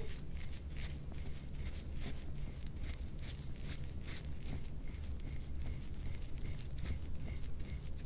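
A stainless steel soft-tissue scraping tool drawn in short, quick strokes over oiled skin on the back, about three strokes a second, each a brief scrape. A steady low hum sits underneath.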